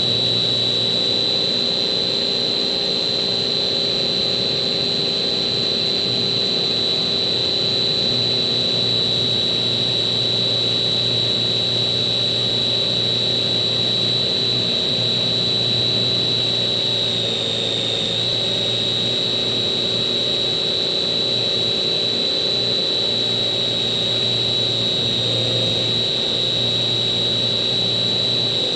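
Slow Stick model plane's electric motor and propeller running at steady cruise, a constant high whine that dips slightly in pitch about two-thirds of the way through, as the throttle eases.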